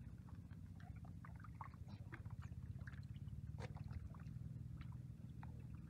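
Hands squelching and splashing through shallow mud and water, making scattered small wet clicks and sloshes as they feel for catfish in the mud, over a low steady rumble.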